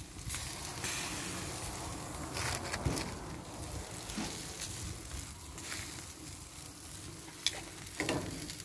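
Meat and chicken sizzling on a gas grill, a steady hiss, with a few sharp clicks of metal tongs against the grill grate as corn is lifted off.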